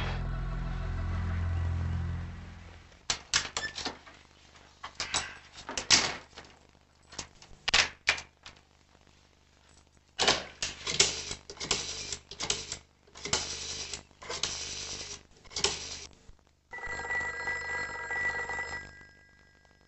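Low sustained music fades out in the first few seconds. Then comes a run of irregular clatters and rustles of objects being handled on a counter. About 17 s in, a black rotary-dial desk telephone's bell rings once for about two seconds.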